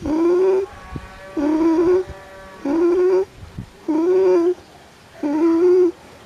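Domestic pigeon (rock dove) cooing: five short, even coos about 1.3 seconds apart, each held on one low pitch.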